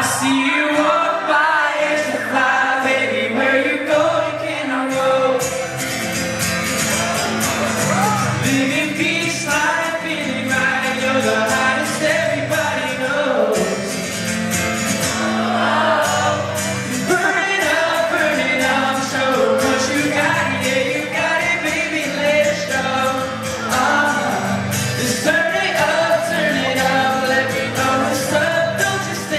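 Live pop music with singing.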